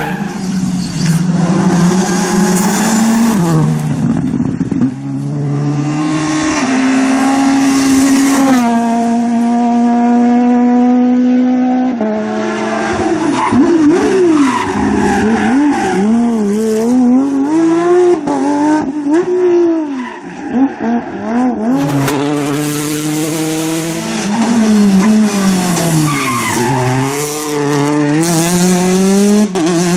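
A rally car's engine driven hard on a stage, loud throughout. Its revs climb, hold and step between gear changes, then rise and fall repeatedly through a run of corners, dipping briefly about two-thirds of the way in.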